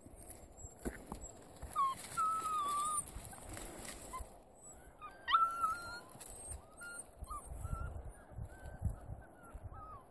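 Elkhound puppies whining in short, high squeaks, one after another, with a sharp rising yelp about five seconds in.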